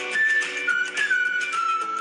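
Background instrumental music: a high, sustained whistle-like melody that slides from note to note over steady lower chords.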